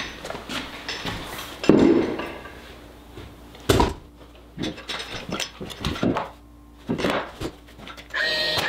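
Wooden box newel post being worked down over its inner blocking: irregular knocks, scrapes and thumps, with a heavy thud about two seconds in and a sharp knock near four seconds. Near the end a DeWalt cordless nailer's motor starts to whine.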